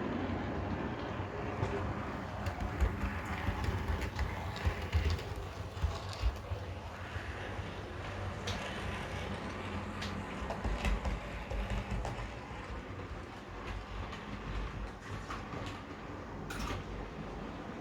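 OO gauge model diesel locomotive's DCC sound decoder playing a Class 27 diesel engine running steadily, with the small clicks of model wheels over rail joints and points. A short high squeal about 16.5 seconds in.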